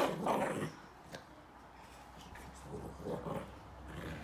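Small chihuahua–silky terrier mix dog growling as it plays with a plush toy. A loud growl burst comes at the very start, with softer growls about two and a half to three and a half seconds in.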